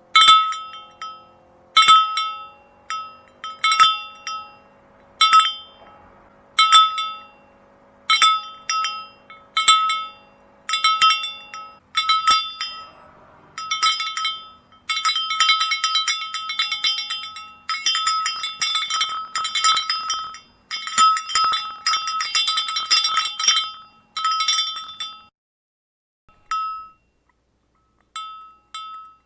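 Cowbells on a walking herd clanking, at first about one ringing clank a second, then a dense jangle of overlapping clanks through the middle, thinning to a few scattered clanks near the end.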